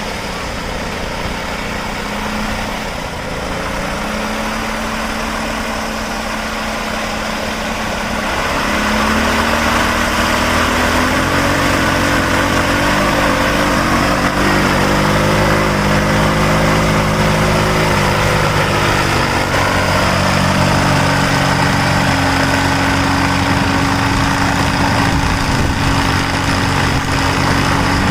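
Single-cylinder Bajaj Pulsar motorcycle engine driving a homemade aircraft's propeller, running at a low steady speed, then opening up about eight seconds in to a louder, higher run that settles and holds steady.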